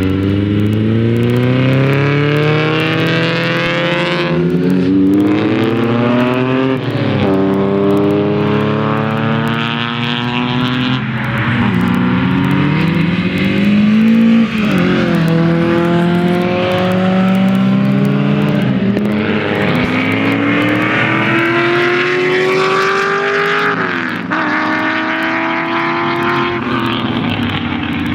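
Several historic racing cars accelerating hard along the circuit, engines revving high, the pitch climbing and falling back sharply at each upshift several times, with more than one engine heard at once.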